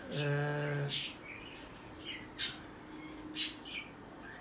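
A man's drawn-out hesitation sound, a flat hum held for about a second, followed by two short high bird chirps about a second apart.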